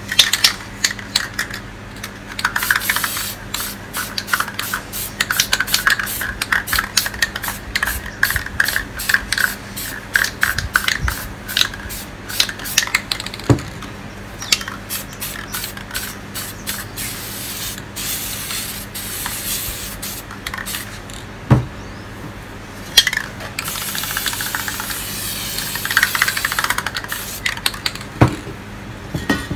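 Aerosol spray paint can hissing in many short spurts, then in a longer continuous spray near the end. A few sharp knocks fall between the sprays.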